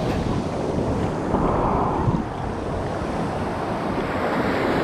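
Ocean surf washing and foaming around a camera held at the water's surface, with wind buffeting the microphone.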